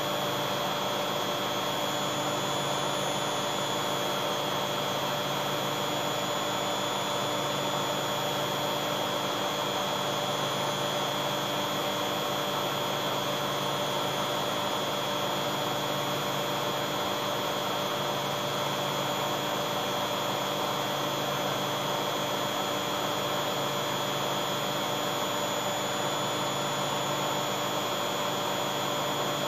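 Beko front-loading washing machine spinning its drum at speed: a steady drone with a high-pitched motor whine.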